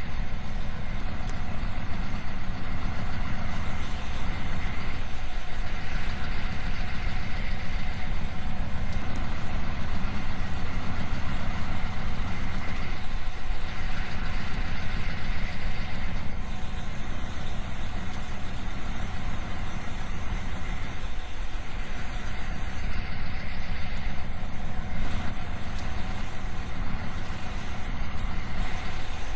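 Fire rescue squad truck driving, its diesel engine and road noise running steadily.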